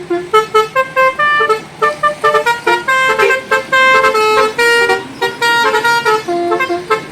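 Indonesian 'telolet' bus horn playing a quick tune: a run of short horn notes that jump from pitch to pitch several times a second.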